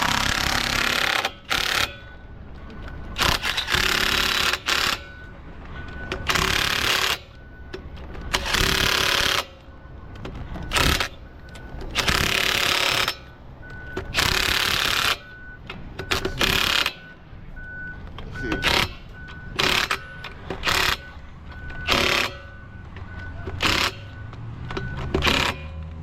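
Impact wrench running in repeated bursts on a van's wheel lug nuts, more than a dozen in all. The early bursts last about a second each and the later ones are shorter.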